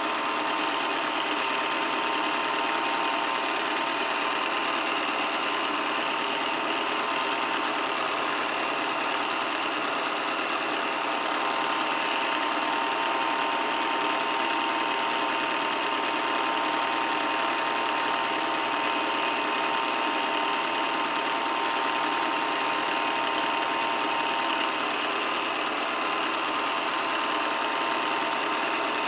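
8mm film projector running steadily: a constant whirring mechanical clatter with a thin, steady whine.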